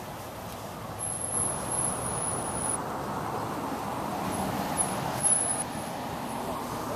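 Street traffic noise, a vehicle running on the road, growing louder about a second in. A thin, high whine sounds for about two seconds and again briefly later.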